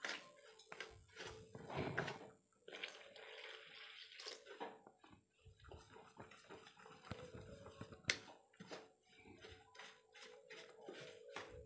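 Wire whisk stirring dry flour and semolina in a steel bowl, a run of soft scrapes with taps against the bowl's side, one sharper clink about eight seconds in.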